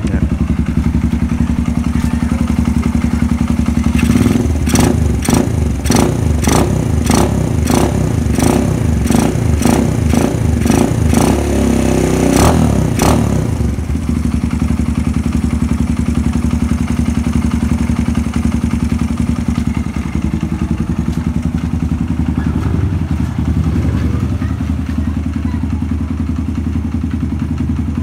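A Suzuki GD110 motorcycle engine runs steadily, fitted with a Nibbi 24mm carburettor and a mushroom high-flow air filter. From about four seconds in until about thirteen seconds, a run of sharp, regular ticks about twice a second sounds over the engine, then the engine settles back to a plain steady run.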